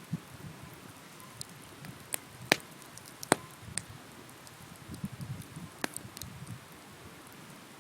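Wood campfire crackling, with a handful of sharp pops (the loudest about two and a half and three and a quarter seconds in) and a run of softer low crackles near the end.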